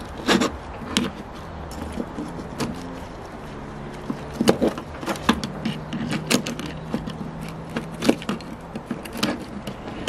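Green-handled aviation snips cutting through wires on a small circuit board: a series of sharp, irregularly spaced snips.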